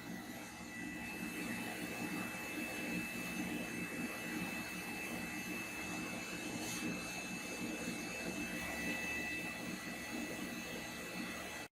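Small Bosch steam boiler in operation, its burner firing: a steady roar of combustion fan and flame with two faint, steady high-pitched whines over it.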